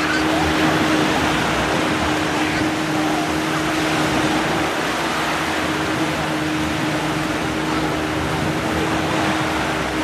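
Steady sea surf and wind noise in the shallows, with a constant low drone running underneath.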